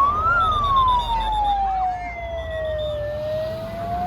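Emergency vehicle siren on a slow wail: it peaks just after the start, slides down for about three seconds, then begins to rise again, over a low background din.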